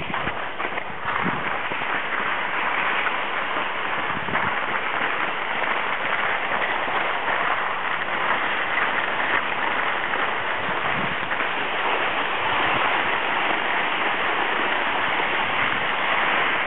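Skis sliding downhill on packed snow: a steady, grainy hiss.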